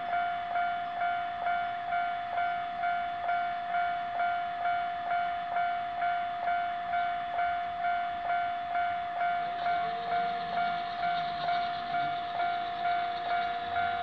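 Japanese level-crossing electronic warning bell starting up and ringing its repeated 'kan-kan' strike at about two strikes a second, the signal that a train is approaching. About ten seconds in, a lower steady hum from the crossing gate's barrier mechanism joins as the arm lowers, and it dies away with a falling pitch near the end.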